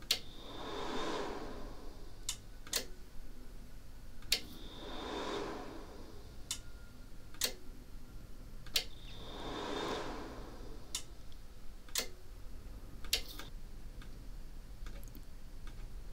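Sharp single clicks a second or more apart from a Cyrus amplifier's power button and the switching relays of two Cyrus MonoX300 power amplifiers, as they are switched between standby and on over the MC-bus. The MonoX300s respond erratically to the bus commands. Three soft rushing swells come between the clicks.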